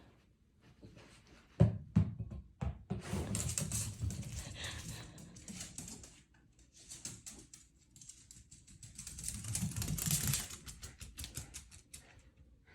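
Small dog playing with a ball: a few sharp knocks about two seconds in, then two long stretches of fast clicking and scrabbling as the dog and ball move about.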